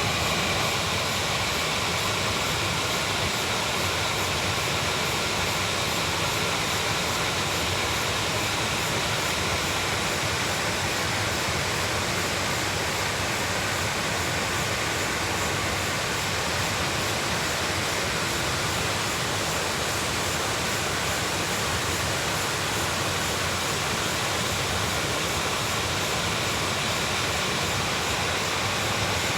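Waterfall heard from above: a steady, unbroken rush of falling water.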